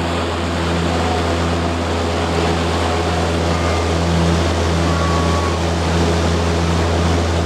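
A boat's engine running steadily under way, a constant low drone with the rush of water and wind over it.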